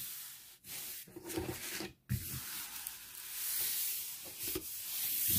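Paper rustling and rubbing as the parchment release paper is handled over a diamond painting canvas, over a steady hiss, with a few soft knocks from handling.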